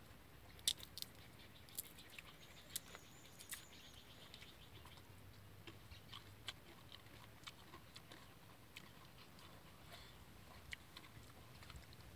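Faint, scattered clicks and crackles of people eating by hand: chewing and picking at food. The clicks are thicker in the first few seconds.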